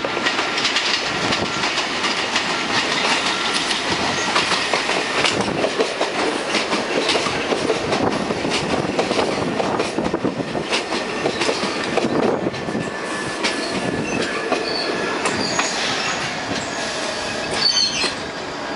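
R46 New York City Subway train rolling into the station past the microphone, wheels clattering over the rail joints and brakes squealing thinly as it slows. A sharp loud burst comes near the end, after which it quietens.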